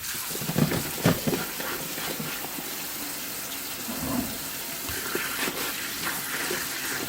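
Cold kitchen tap water running onto sliced pickling cucumbers in a colander, splashing as they are rinsed by hand after salting.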